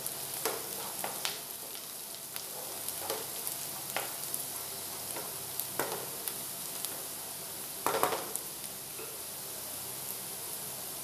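Chopped onion and garlic sizzling in hot oil in a nonstick wok, frying toward golden brown, while a wooden spatula stirs and scrapes through it. Light knocks of the spatula against the pan come every second or so, with a louder clack about eight seconds in.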